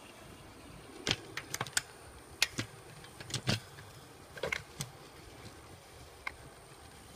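Irregular sharp clicks and ticks, about fifteen in all and unevenly spaced, over a faint steady hiss, as a gas torch flame heats a galvanised steel mounting bracket.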